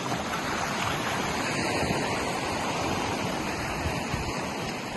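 Steady rush of wind and sea, with wind buffeting the microphone.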